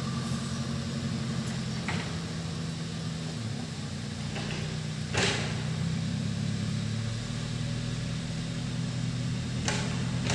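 An engine running steadily at a low, even speed, with three short sharp knocks; the one about five seconds in is the loudest.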